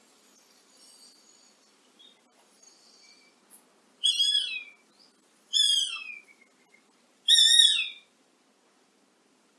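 A bird calling three times, about a second and a half apart, each call loud and falling in pitch. Faint chirps of other birds come before them.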